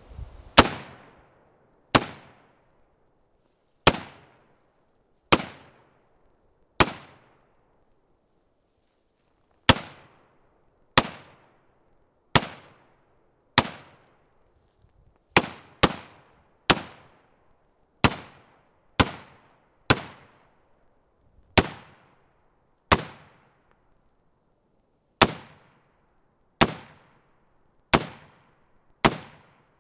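AR-15 rifle firing about twenty single semi-automatic shots at an uneven pace, mostly one to three seconds apart with a pair in quick succession near the middle; each crack dies away in a short echo.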